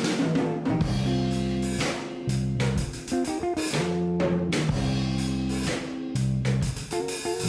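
Instrumental background music with guitar and drums keeping a steady beat.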